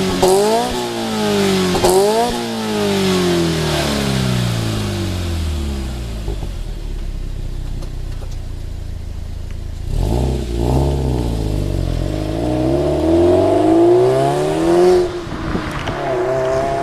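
Subaru Impreza WRX STI's turbocharged flat-four engine through an HKS Super Turbo Muffler. It gives two sharp throttle blips in the first two seconds, then the revs sink slowly back to idle. About ten seconds in the car pulls away: the revs rise steadily, drop at a gear change about fifteen seconds in, and climb again.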